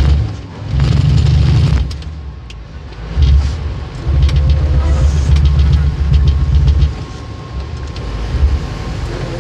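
A vehicle running along a rough dirt trail: a heavy low rumble surges and drops several times, with scattered knocks and rattles over it.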